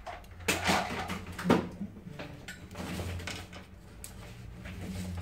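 Handling noise on a desk as a soldering iron is picked up: a few quick rustles and clatters with one sharp clack about one and a half seconds in, then lighter rustling. A low steady hum runs underneath.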